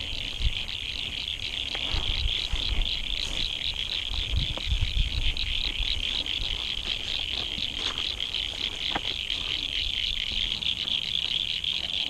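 A chorus of many frogs calling, a steady high trill of fast pulses, with low thuds underneath.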